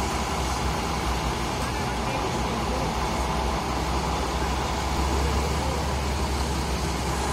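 Heavy semi truck's diesel engine running with a steady low rumble as it slowly tows a house on a heavy-haul trailer, under load.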